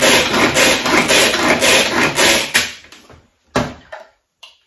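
Guy Demarle Tornado pull-cord hand chopper being worked in quick pulls, about four a second, its blades chopping hard-boiled eggs in the plastic bowl. The chopping stops a little past halfway, and two short knocks follow.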